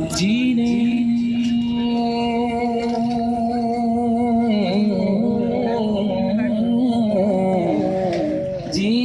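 A man singing a naat, an Urdu devotional poem in praise of the Prophet. He holds one long note for about four seconds, then carries on in a wavering, ornamented melody.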